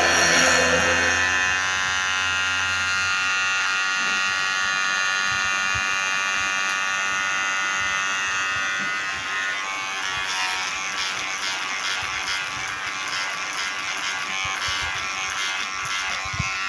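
KIKI cordless hair clipper running with a steady buzz, its freshly sharpened stainless blades just oiled. From about ten seconds in, the buzz takes on a rougher, scratchier edge.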